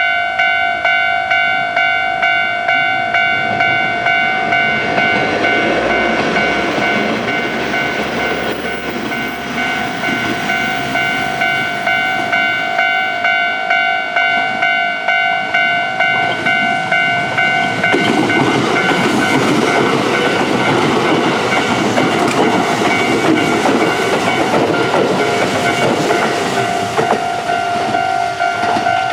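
Level crossing alarm bell ringing over and over in an even rhythm, with the noise of a Kintetsu 1440 series and 2610 series express train: the train gets markedly louder about two-thirds of the way in as it runs past with wheel clatter.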